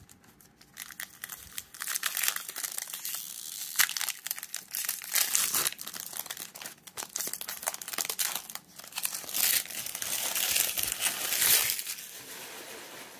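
Foil wrapper of a baseball card pack being torn open and crinkled in the hands: a long run of crackling rustles, loudest about four seconds in and again near the end, before it dies away.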